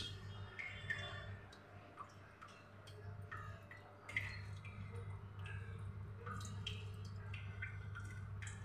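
Faint soft clicks and squishes of fingers pressing crumbly paneer stuffing into a hollowed green capsicum, over a steady low hum.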